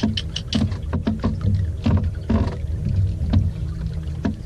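Small fishing boat at sea: a steady low engine hum, with irregular knocks and splashes of water against the hull.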